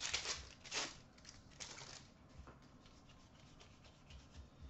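Hockey trading cards being handled and slid over one another, giving a few brief papery rustles in the first two seconds and fainter ones after.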